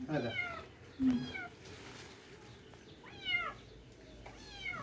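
A kitten meowing four times, each call high-pitched and falling in pitch.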